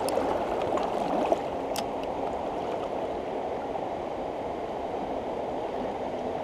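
Shallow, rocky river rushing steadily over stones, with a few light clicks in the first two seconds.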